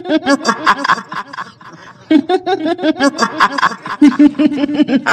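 A woman's voice doing the kuntilanak ghost's cackling "hihihi" laugh, in runs of rapid, repeated laughing syllables. Fresh bouts start about two seconds in and again about four seconds in.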